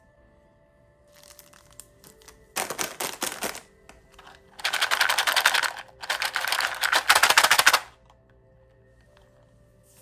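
Plastic candy wrapper crinkling close to the microphone as a lollipop is unwrapped: faint at first, then three loud spells of dense crackling, the last two the longest, stopping about two seconds before the end. Faint soft background music runs beneath.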